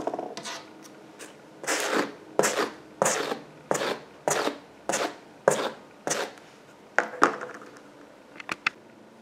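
Wire-bristle slicker brush raking through crochet yarn loops in quick repeated strokes, about ten scratchy swipes, combing the yarn out into fuzz. A few light clicks near the end.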